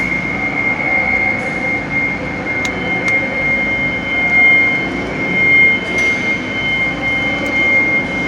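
Steady mechanical background hum with a constant high-pitched whine, a second, fainter whine joining about three seconds in, and a few faint clicks.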